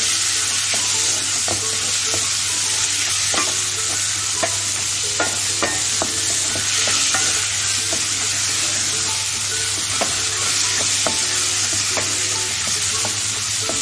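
Diced onion and tomato sizzling in hot oil in a frying pan, stirred with a wooden spoon that scrapes and knocks against the pan at irregular moments, over a steady low hum.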